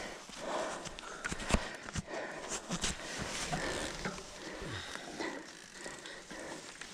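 A person breathing hard after riding, with rustling and a few sharp clicks as a cycling shoe is adjusted by hand.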